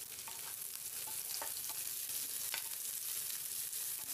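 Chopped garlic, ginger and green chillies sizzling in a little hot oil in a nonstick pan, with a few light taps and scrapes of a wooden spatula stirring them.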